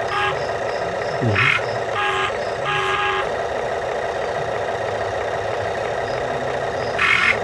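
Short vehicle horn toots, several in the first three seconds and another near the end, over a steady hum.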